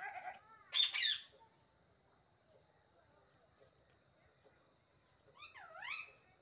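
Goat kids bleating: two short, high-pitched calls in the first second, then a longer call near the end whose pitch falls and rises again.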